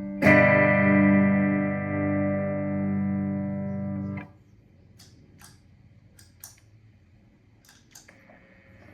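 Distorted electric guitar chord from a Fender Stratocaster through an effects pedal chain and amp, struck once and left ringing for about four seconds, then cut off sharply. A few faint clicks follow.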